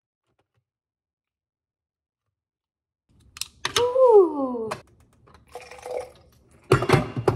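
About three seconds of dead silence, then glass clinks and knocks as a blended ginger mixture is handled and poured from a blender jar into a glass jar, with a short falling tone about four seconds in and a cluster of sharp knocks near the end.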